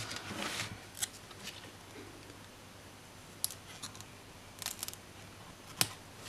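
Small paper-handling sounds of a sticker sheet and a label sticker being peeled off and pressed onto a planner page: a brief paper rustle at the start, then a few faint sharp ticks and taps, with a quick cluster of them about two thirds of the way in.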